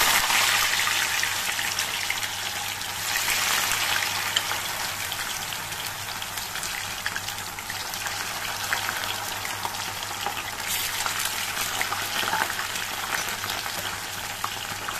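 Potato-and-paneer snacks deep-frying in very hot oil in a kadhai, a dense crackling sizzle. It swells louder near the start and again about three seconds in.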